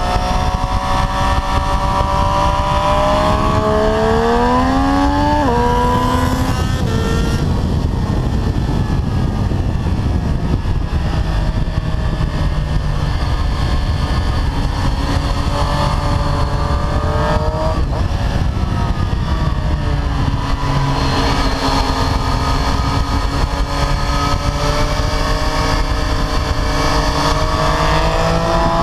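Onboard sound of a Triumph Street Triple 765 RS's three-cylinder engine at track speed: the revs climb and drop sharply with two quick upshifts about five and six seconds in, then rise and fall again, over a steady rush of wind on the microphone.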